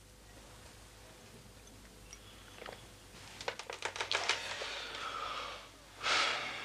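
Portable radio-cassette player being handled while its batteries are changed: a quick run of sharp plastic clicks and rattles from its case and battery cover. A short rush of hiss follows near the end.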